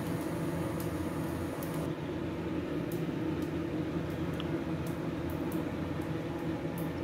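Steady low hum of a running household appliance, with a few faint clicks.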